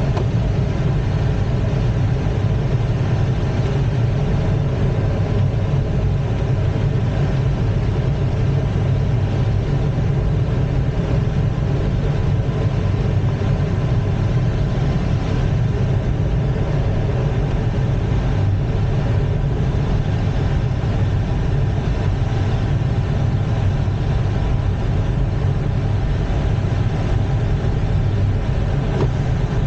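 Steady rush of airflow over an ASK-21 glider's canopy and fuselage in gliding flight, heard from inside the cockpit as a loud, even, low rumble.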